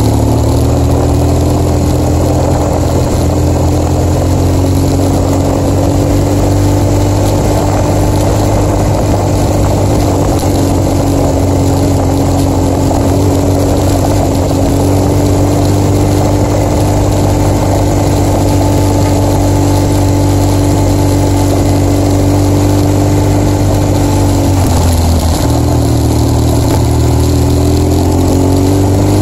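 BMW R1200GS boxer-twin engine running under way at a steady pitch, over a rush of wind and road noise. Near the end the engine note drops briefly, then climbs again as the bike accelerates.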